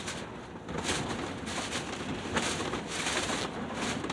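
Close-up mouth noises of someone eating a frozen popsicle: several short hissy sucks and slurps.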